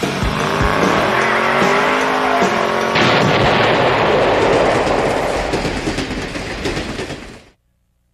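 Cartoon dynamite effects: a lit fuse with a sound that glides up and down in pitch, then about three seconds in a loud explosion that rumbles and dies away, cut off to silence near the end.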